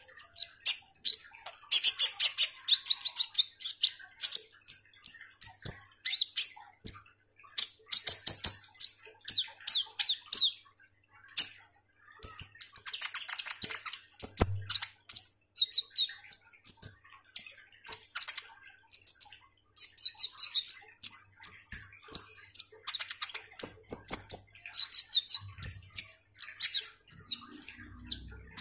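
Caged male kolibri ninja sunbird singing continuously: rapid, high, thin chirps and twittering trills, with a brief pause about eleven seconds in.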